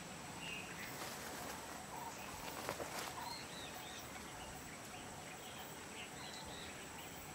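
Open-air ambience with small birds giving scattered short chirps over a steady background hiss and a thin, steady high-pitched tone. A brief crackling rustle comes about two and a half seconds in.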